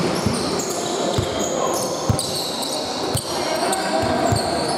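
Basketball game on a wooden sports-hall floor: many short, high squeaks of shoes on the court, a ball thumping on the floor every second or so, and indistinct shouts from players, all echoing in the large hall.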